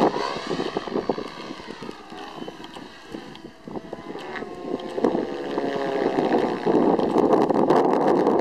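Radio-controlled helicopter flying 3D aerobatics overhead, the pitch of its rotor and motor sliding up and down. It fades about two seconds in and grows louder again from about five seconds, with a rough rushing sound.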